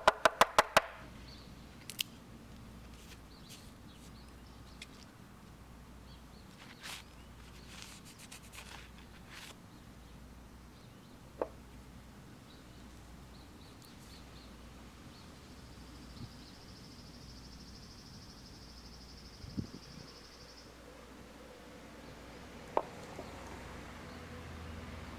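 Sparse light clicks and taps of parts and tools being handled, starting with a quick run of about six sharp clicks, then single knocks every few seconds over a low background hum. A faint, high, steady sound is heard for a few seconds past the middle.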